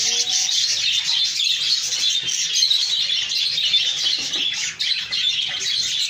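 Dense, continuous high-pitched chirping and twittering of caged birds.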